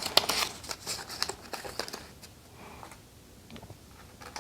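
Sticker sheets and notebook pages being handled: rustling with a few sharp clicks, busiest in the first two seconds and fainter after.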